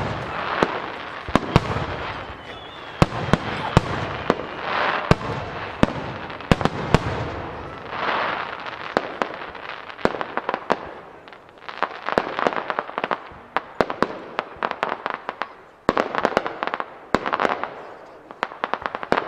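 Starmine fireworks barrage: shells bursting in quick succession, many sharp bangs over swells of crackling hiss, with the bangs coming thicker in the second half.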